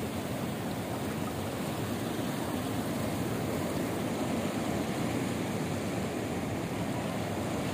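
Large ocean waves surging onto a rocky shore: a steady rushing wash of surf.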